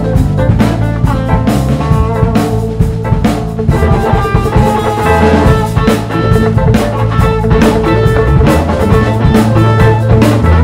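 Live instrumental rock band playing: drum kit keeping a steady beat under electric guitar and electric bass.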